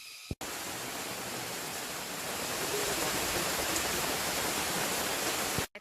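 Heavy rain falling, a dense, steady hiss that starts abruptly just after the start, swells slightly midway and cuts off sharply near the end.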